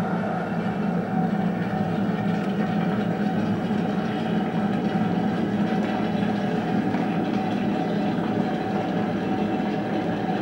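A steady, unchanging rumbling noise.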